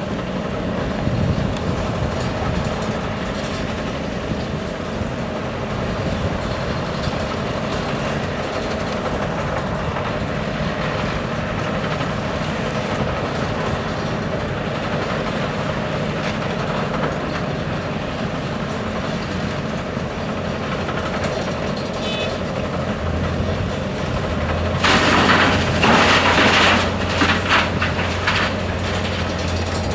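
Hyundai R520LC-9A excavator's diesel engine and hydraulics running steadily under work. About 25 seconds in, a loud rattling rush of gravel pouring into a truck bed for about two seconds.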